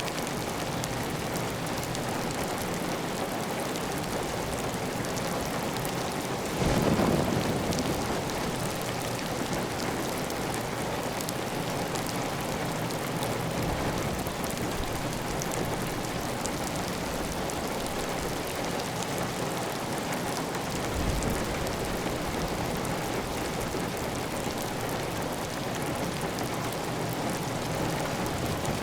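Heavy, steady rain on a tiled roof, with water running off the roof edge. About seven seconds in a brief, louder low thump stands out, and a smaller one comes near the end.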